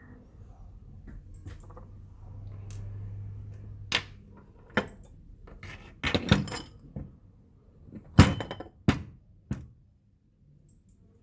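A string of sharp knocks and clacks of hard objects being handled and set down, about seven in all, with a quick cluster partway through and the loudest near the end. A faint low hum runs under the first few seconds.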